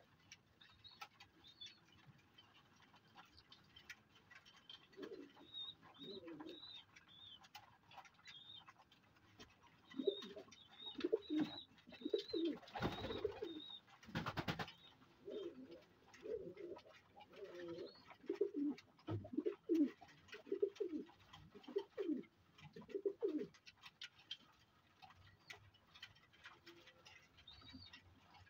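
Pakistani flying pigeons cooing over and over, the coos crowding together through the middle stretch, with faint high chirps and scattered light clicks. A brief rustling noise about halfway through.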